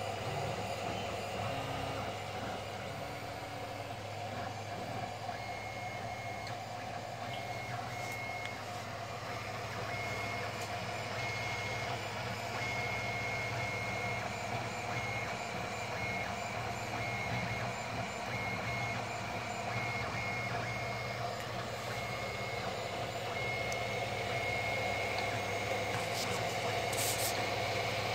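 Aurora I3 3D printer running a print: its fans give a steady hum, and its stepper motors whine in short on-and-off high tones as the print head moves.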